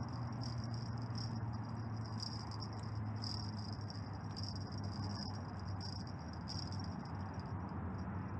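Crickets chirping in a steady, rapidly pulsing high trill, over a low steady hum.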